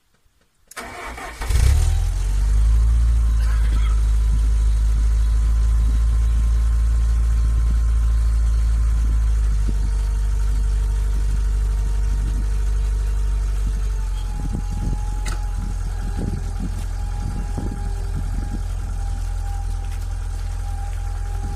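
1994 Lancia Delta II 1.8 i.e. 8-valve inline-four cold-started at −2 °C through a decat exhaust with no catalytic converter. The starter cranks briefly about a second in, the engine catches and runs at a fast cold idle, and about 14 s in it settles to a lower, slightly uneven idle.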